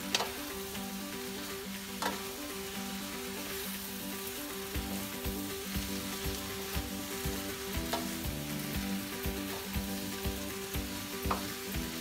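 Sliced bitter gourd with tomato and onion sizzling in a frying pan over a gas flame as a wooden spatula stirs it, with a few sharp knocks of the spatula against the pan.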